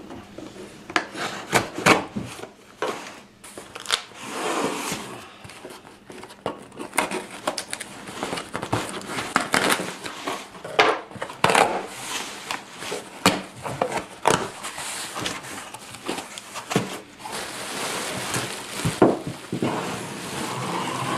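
A cardboard shipping box being opened by hand: packing tape peeled and torn, cardboard flaps scraped and handled, with plastic packaging rustling near the end. It is an uneven run of short scrapes, rips and knocks.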